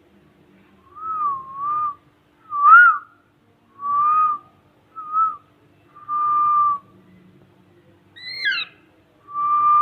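A series of about seven short, clear whistled notes, several wavering up and down in pitch. About eight seconds in, one quick note starts high and falls steeply.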